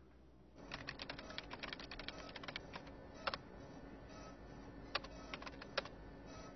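Typing on a computer keyboard: a quick run of keystrokes for about two seconds, then a few single louder clicks, over a faint steady hum.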